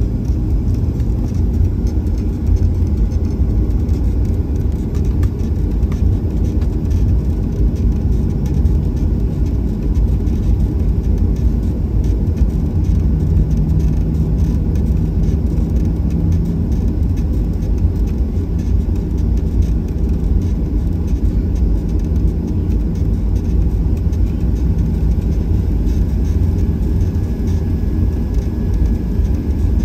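Cabin noise inside a Boeing 737-800 taxiing: a steady low rumble from its CFM56-7B engines at taxi power as the airliner rolls along the taxiway, with a faint hum coming in for a few seconds near the middle.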